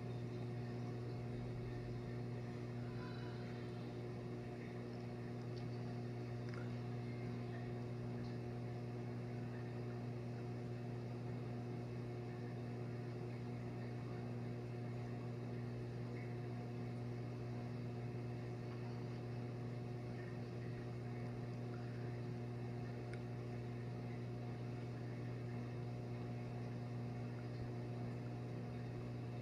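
Steady low electrical hum with a few higher overtones over a faint hiss: a small reef aquarium's pump running.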